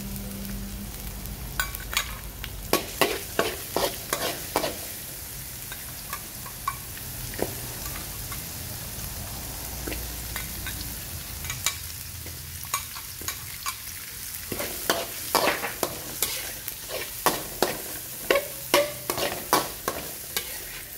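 Metal spatula scraping and clacking against a steel wok as chopped shallots and garlic are stir-fried, over a steady sizzle of hot oil. The spatula strokes come in quick runs, one a couple of seconds in and another through the last third, with a quieter stretch of plain sizzling between.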